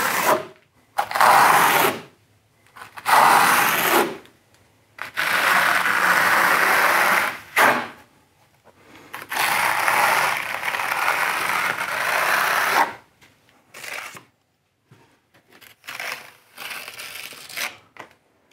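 Steel notched trowel scraping mortar across a wall in a series of long strokes, each one to three seconds, with shorter, fainter scrapes near the end.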